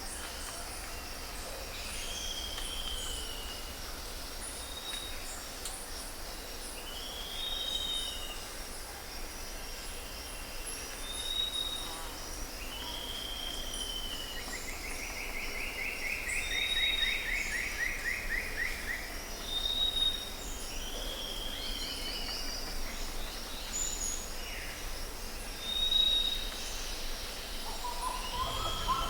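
Several birds calling: repeated short arched calls and brief high whistles, and about halfway through a buzzy trill a few seconds long that falls slightly in pitch. A steady low rumble runs underneath.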